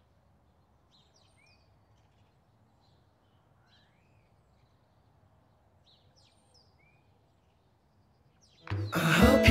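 Faint outdoor background with scattered short bird chirps and whistles, some rising or falling in pitch. Near the end, loud music comes in suddenly.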